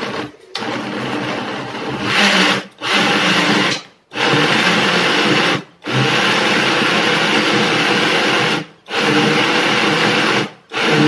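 Shake 'n Take personal bottle blender's motor running at full speed as it blends fruit and water, in runs of one to three seconds cut by about six brief stops. It runs only while the bottle is pushed down onto its safety lock.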